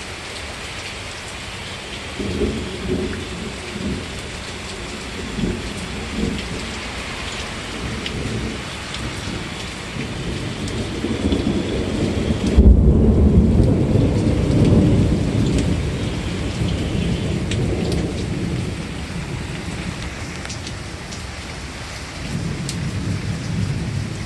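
Steady rain falling, with rolling thunder. Low rumbles come and go early on. About halfway through a loud thunderclap breaks sharply and rolls on for several seconds before fading back under the rain.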